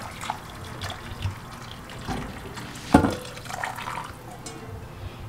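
Hot water poured from a kettle into a stainless steel bowl of raw chicken pieces, a steady splashing as the chicken is rinsed clean, with one sharp knock about three seconds in.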